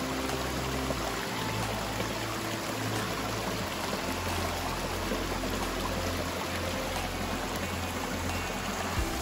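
Steady rushing, pouring water with background music underneath, its sustained low notes changing every second or so.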